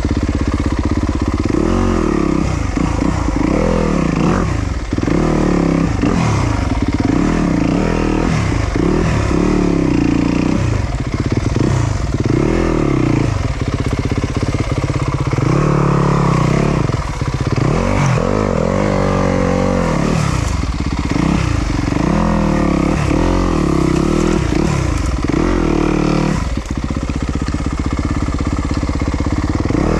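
Yamaha YZ250FX 250 cc four-stroke single-cylinder dirt bike engine being ridden hard, its revs rising and falling over and over.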